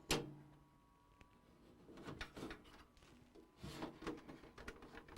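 Light handling noises as parts and cables are fitted inside a desktop PC case: a sharp click right at the start, then soft knocks and rubbing about two seconds in and again near four seconds.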